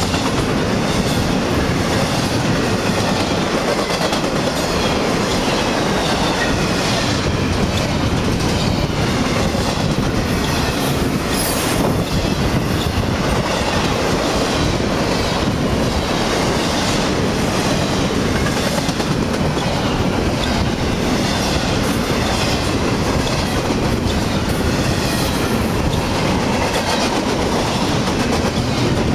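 Intermodal freight train's double-stack well cars and trailer flatcars rolling past close by: loud, steady wheel-and-rail noise with a regular clickety-clack of wheels over the track.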